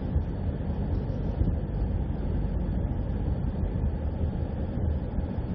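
Steady low rumble of a vehicle in motion, engine and road noise with no distinct events.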